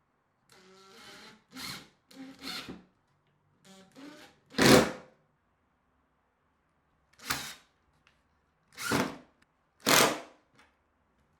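A power drill run in about six short bursts, each under half a second, with pauses between them; the loudest burst comes just under five seconds in.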